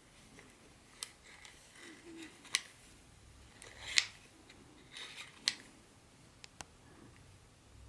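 Unboxing handling sounds: five sharp clicks about a second to a second and a half apart, the loudest about four seconds in, with soft rustling between.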